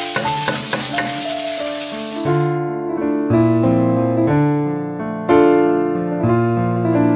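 Food sizzling in a hot pan, with a few clicks of a stirring utensil, cutting off abruptly about two and a half seconds in. Electric piano background music plays throughout and is heard alone after that.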